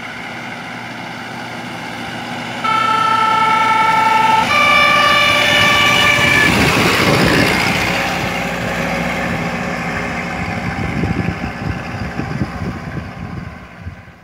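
A 1918 vintage fire engine drives past, sounding its horn in two long notes, the first lower than the second, a few seconds in. Its engine and tyres then pass close and fade away.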